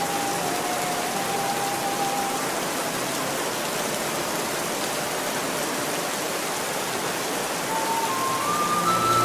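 Steady hiss of falling water like heavy rain, from a terrarium's artificial rainfall system. A soft melody plays briefly at the start and comes back near the end.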